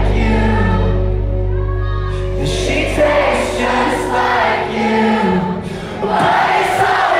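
Live indie-pop band playing with a lead singer, heard loud from the crowd. The sustained low bass drops out about four and a half seconds in, and the music builds loud again near the end.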